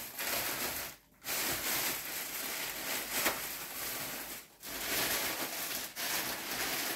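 Plastic bags full of varenyky rustling and crinkling as they are handled and shifted about. The sound stops briefly twice, about a second in and again past the middle.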